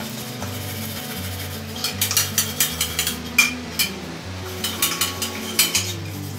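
Kitchen containers and utensils clinking and clattering as they are handled and set down, in two spells of a couple of seconds each, over background music.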